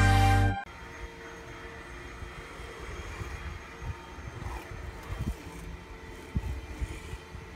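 Intro music cuts off in the first moment, followed by a steady low outdoor rumble with a faint continuous hum and a few soft low thumps.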